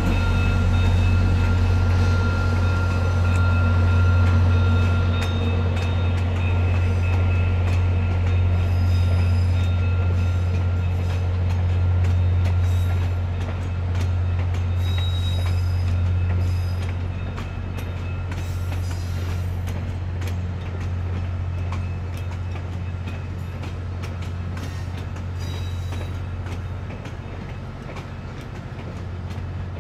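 VIA Rail F40PH diesel locomotive hauling a passenger train past, its engine a steady low drone that eases off as it moves away. Faint high wheel squeals and light clicks come from the passing cars.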